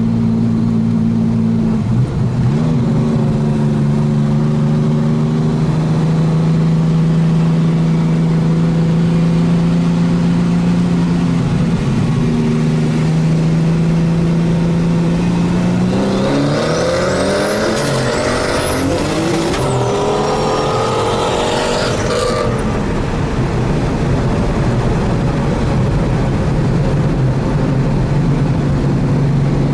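A car engine running steadily at a low, even pitch, then, about halfway through, a car accelerating hard, its engine pitch rising steeply for about six seconds before it settles back to a steady low drone.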